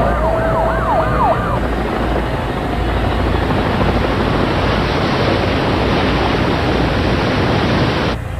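Emergency vehicle siren wailing in quick rising and falling sweeps over a low traffic rumble, dying away about a second and a half in. A loud, steady rushing noise then fills the rest and cuts off abruptly near the end.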